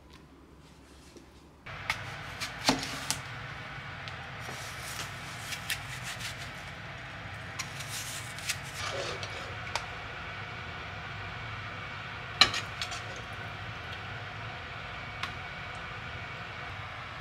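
Kitchen work sounds: a knife cutting an apple on a plastic cutting board, and scattered clicks and knocks of utensils and containers, the sharpest a few seconds in and again about halfway through. A steady background hum comes in about two seconds in.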